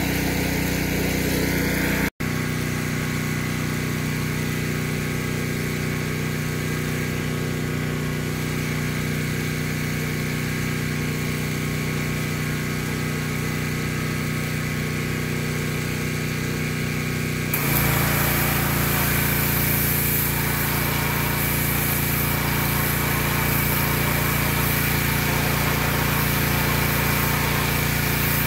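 Pressure washer running steadily under power, with a split-second dropout about two seconds in and a shift to a slightly louder, brighter sound about eighteen seconds in.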